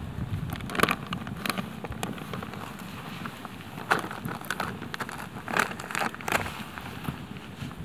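Wood campfire in a stone fire ring crackling, with irregular sharp pops, a handful of them louder than the rest.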